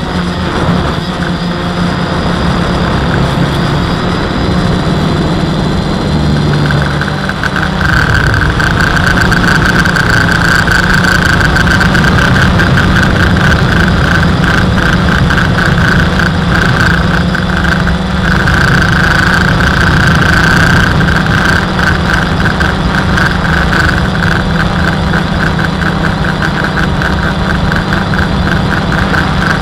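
WLtoys V303 Seeker quadcopter's motors and propellers buzzing steadily, heard from its onboard camera. About seven seconds in the buzz grows louder and higher as the throttle goes up and the drone climbs.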